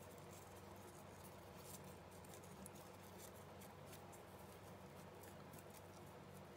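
Near silence: a faint steady room hum with soft scattered ticks and rustles of hands working a satin ribbon into a bow.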